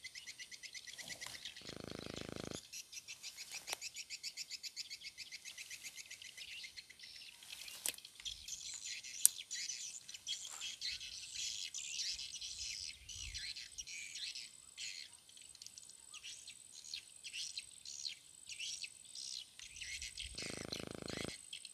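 Swamp insects and birds: a fast, even pulsing insect trill for the first several seconds, then scattered short bird chirps. A single sharp click about nine seconds in.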